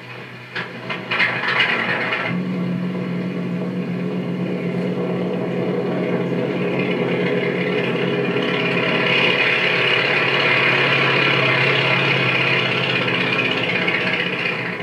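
Light propeller aircraft engine running in flight, rough and uneven for the first two seconds, then settling into a steady hum. It grows louder in the middle as the plane passes and eases off near the end.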